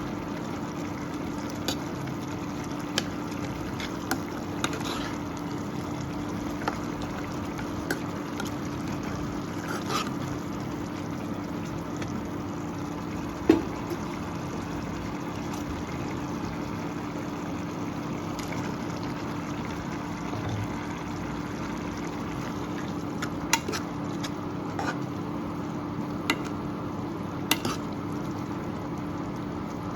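Kitchen cooking sounds: a steady hum and hiss with scattered small clicks and pops, the loudest about halfway.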